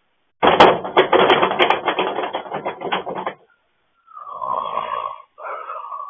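A man's loud, rasping, snore-like growl from the throat for about three seconds, then two shorter groaning vocal sounds.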